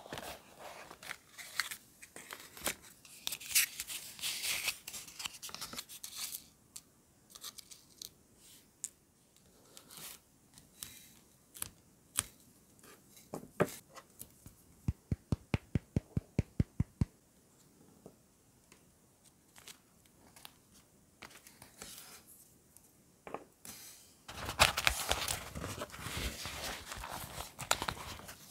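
Close-up handling of paper journaling supplies: scattered rustling and light taps of paper on a desk, with a quick even run of about a dozen clicks in the middle. Near the end comes a dense stretch of crinkling and rustling as paper and sticker sheets are handled.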